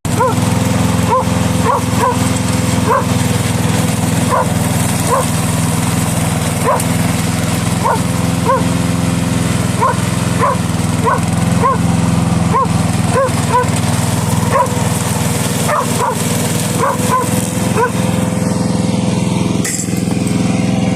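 A dog barking again and again, about one or two barks a second, over the steady running of a Vigorun VTLM800 remote-controlled lawn mower's engine.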